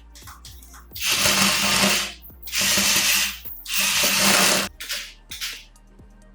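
A remote-controlled toy JCB's small geared motors running with a ratcheting gear whirr, in three loud runs of about a second each, with short clicks between and after.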